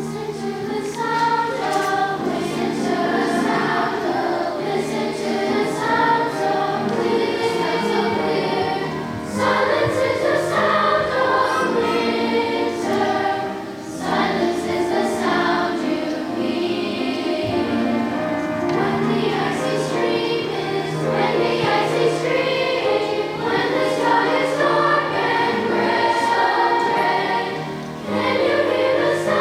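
Children's choir of sixth graders singing a song, with two brief pauses between phrases.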